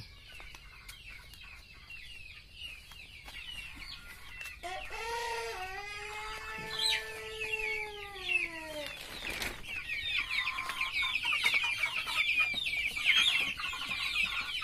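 Domestic rooster crowing once about a third of the way in: one long drawn-out crow of about four seconds that sags in pitch as it ends. Throughout, a steady chorus of rapid high cheeping, louder in the second half.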